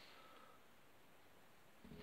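Near silence: faint room tone.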